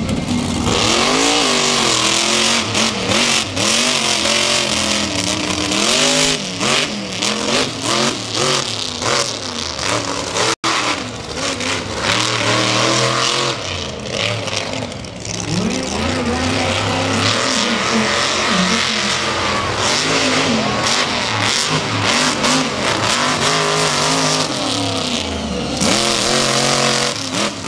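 Monster truck engines revving hard as the trucks drive the course, the pitch rising and falling over and over above a heavy roar, with a sudden break about ten seconds in.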